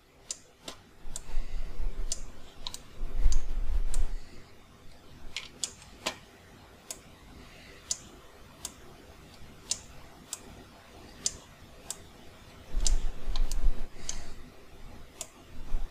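Sharp, separate clicks at the computer, roughly one a second, as the sculpt is worked, with three short low rumbles: one about a second in, one about three seconds in and one near the end.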